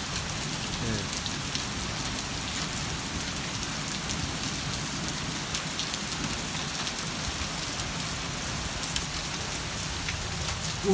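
Heavy rain pouring steadily, with scattered sharp taps of drops striking nearby surfaces.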